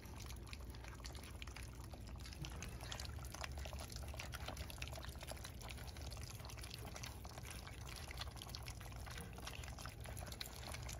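A litter of 4.5-week-old bully puppies eating soaked kibble mush from a round pan: a steady, irregular patter of wet lapping, smacking and chewing.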